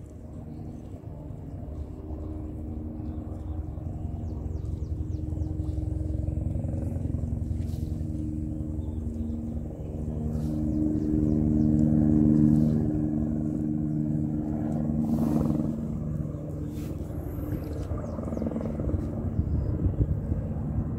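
A motorboat's engine running steadily. It grows louder toward the middle as it passes, then eases off.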